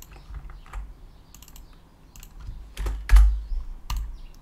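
Computer keyboard typing in irregular clicks, with a heavier knock about three seconds in.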